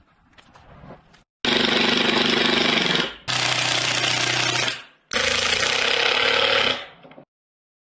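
Cordless driver running in three bursts of about one and a half to two seconds each, driving screws through plywood to join an upright panel to its base.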